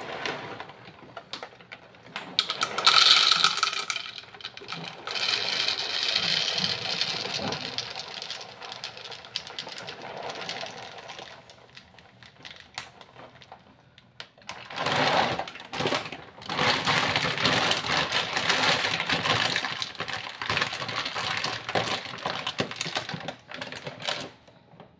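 Pedigree dry dog kibble pouring from its bag into a glass jar: a dense rattling clatter of pellets on glass, in two long pours with a short lull between them.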